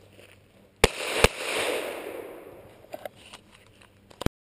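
Two pistol shots from a 9 mm Glock 17 fired in quick succession, less than half a second apart, in a double tap. A long rolling echo follows and dies away over about two seconds.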